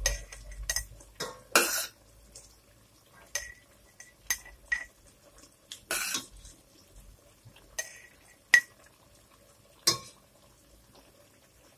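Metal spoon clinking and scraping against a stainless steel pot and a glass jar as cooked red pepper pieces are spooned into the jar: scattered short clinks at irregular intervals, some ringing briefly.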